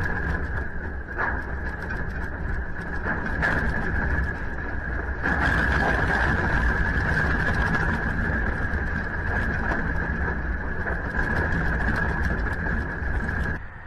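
A fixed outdoor camera shaking in a strong earthquake: a steady low rumble with a constant high hiss, growing louder about five seconds in and cutting off abruptly near the end.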